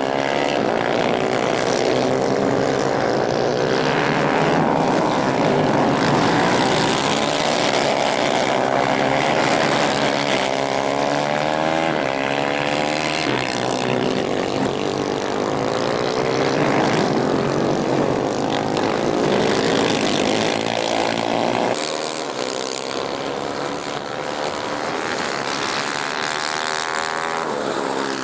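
Several 250 cc racing kart engines running hard, a high buzzing whose pitch rises and falls as the karts accelerate and brake through the corners.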